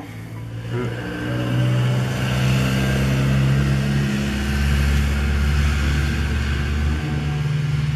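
A motor vehicle engine running with a low, steady rumble, building over the first second or so, holding, then easing off near the end.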